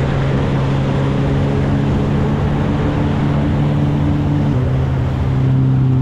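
Personal watercraft (jet ski) engine running steadily at speed, with water rushing and spraying off the hull. The engine note shifts slightly about two-thirds of the way through.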